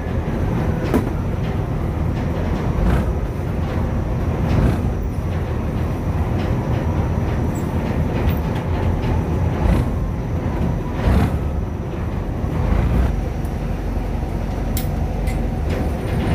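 A boat engine running with a steady low rumble, with scattered irregular knocks and clatters over it.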